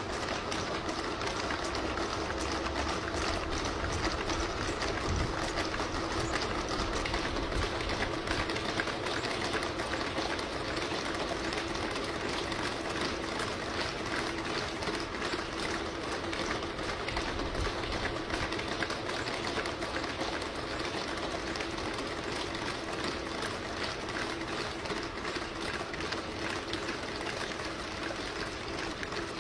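A pack of Boston Dynamics Spot quadruped robots walking in step while hauling a box truck: a dense, fast, even clatter of many feet and joints over a steady mechanical hum.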